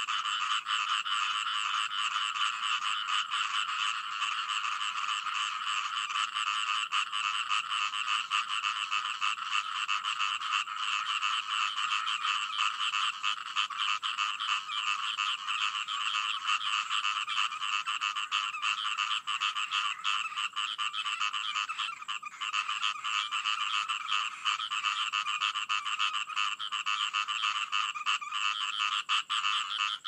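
A dense chorus of many frogs calling at once: rapid pulsed calls overlapping into one continuous, unbroken din.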